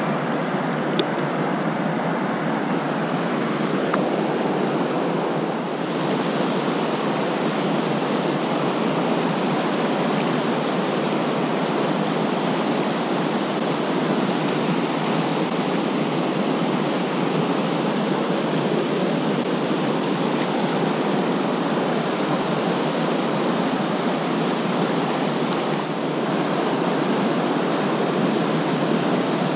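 Steady rush of river rapids spilling over rock ledges close by: an even wash of white water.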